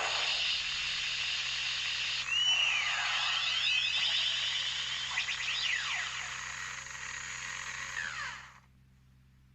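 Kamen Rider toy transformation belt playing its electronic transformation sound effect: a dense buzzing whirr with sweeping falls and rises in pitch over it, cutting off about eight and a half seconds in.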